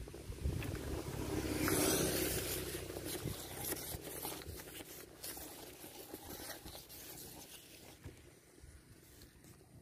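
Rustling and scraping handling noise, loudest about two seconds in, as the angler's sleeve and arm brush past the camera while he lifts a small fish from the water. It thins into scattered light clicks and taps that fade toward the end.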